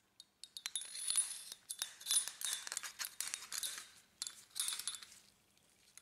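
Halogen heating lamp being slid into a laser printer's hollow metal fuser roller: light, irregular metallic clinks and scraping as the glass tube and its metal terminal tab knock along the roller, fading out about five seconds in.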